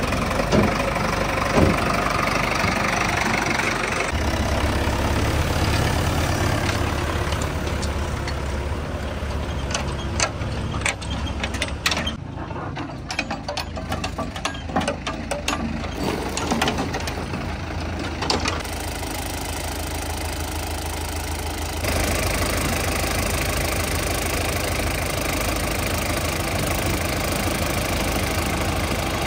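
Tractor diesel engine running, with scattered sharp knocks and clatter in the middle. The sound changes abruptly several times, as between separate shots.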